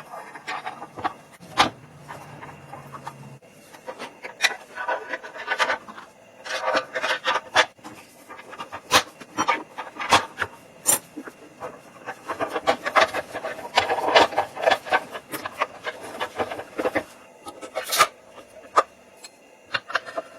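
Irregular rasping and rubbing strokes of hand work on a surface, broken by many sharp clicks and knocks.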